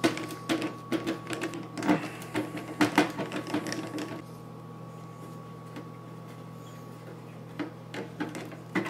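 Screwdriver backing out the metal screws that hold a case fan under a PC case's top mesh panel: irregular clicks and scrapes of the tip and screws, frequent for the first four seconds, then a few more near the end.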